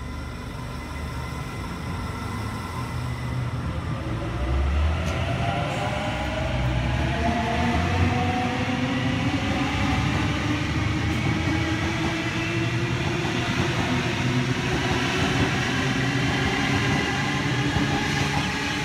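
Sydney Trains Waratah electric train accelerating away from the platform and passing close by. From about four seconds in, its traction motors whine in several tones that rise steadily in pitch as it gathers speed, over the rumble of the wheels on the rails.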